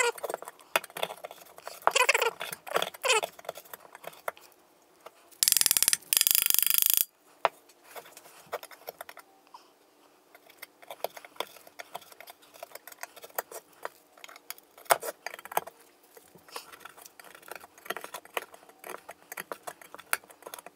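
A wooden-handled pick scraping and prying at a Honda VFR800's aluminium radiator, a stream of small metallic scratches and clicks as the bubbled, flaking surface layer over seeping coolant is peeled away. About five and a half seconds in, a loud rushing burst lasts about a second and a half.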